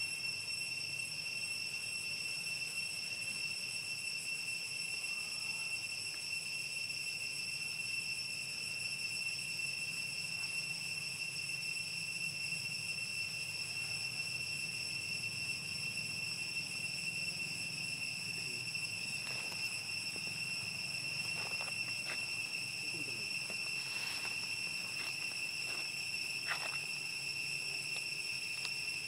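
Insects droning steadily at one high pitch, with a few faint clicks in the second half.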